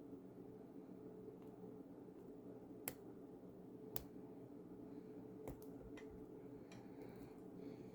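Faint, sharp clicks of a lock pick and turning tool working inside a small five-pin stainless steel disc lock, a handful of scattered clicks with the two loudest about three and four seconds in, over a low steady hum.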